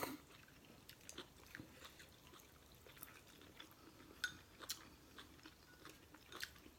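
Faint chewing of instant noodles, with scattered small mouth clicks.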